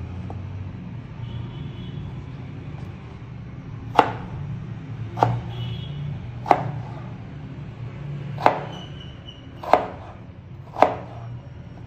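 Large kitchen knife cutting raw potato into sticks on a plastic cutting board: six sharp knocks of the blade hitting the board, starting about four seconds in and then about one a second, over a steady low hum.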